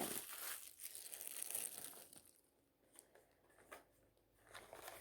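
Foil wrapper of a Topps trading-card pack crinkling and tearing faintly, then a few small ticks and more crinkling near the end.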